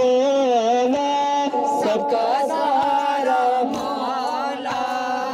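Voices singing a nauha, a Shia mourning lament, as a chant with long held notes.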